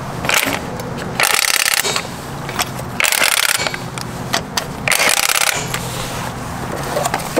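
Impact wrench run in three short bursts of about half a second each, tightening the lug nuts on a freshly mounted wheel. A low steady hum sounds between the bursts.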